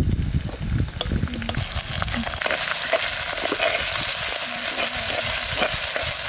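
Food frying in hot oil in a pan, the sizzle rising sharply about two seconds in and holding steady, with a spoon clinking and scraping as it is stirred. A few knocks come before the sizzle.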